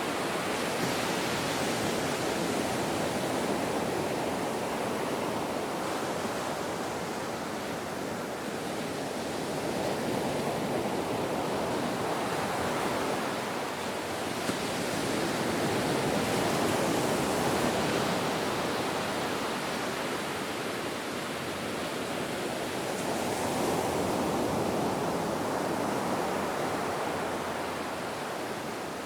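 Ocean surf: a steady rush of waves that swells and eases roughly every seven seconds.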